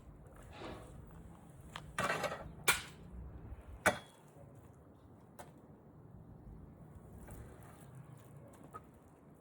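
Kitchen handling noises: a brief rustle about two seconds in, then a few sharp clinks and knocks, over a low steady hum.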